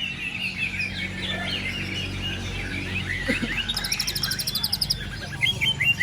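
Many caged songbirds chirping and singing over one another, with a fast high trill about four seconds in and quick rising chirps near the end.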